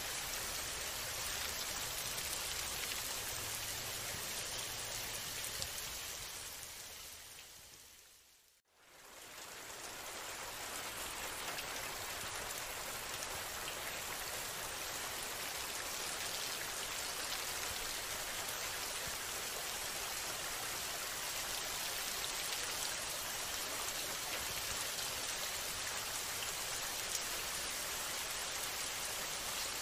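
Steady rain ambience, an even hiss of rainfall, that fades down to silence about eight and a half seconds in and rises straight back to full level.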